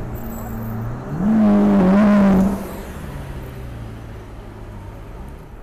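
Lamborghini Aventador's V12 engine driving off: a steady low drone, then about a second in a loud rev that rises in pitch and holds for about a second and a half before dropping back to a lower, steady drone.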